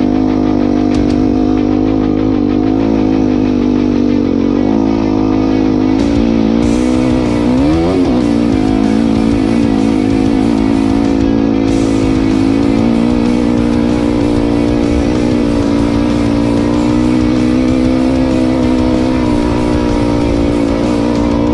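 Yamaha YZ250F single-cylinder four-stroke dirt bike engine running at steady riding speed, mixed with rock music with electric guitar.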